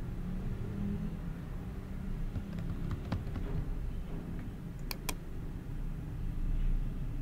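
Low steady background rumble with a few sharp clicks: a faint one about three seconds in and two close together about five seconds in, from a computer mouse.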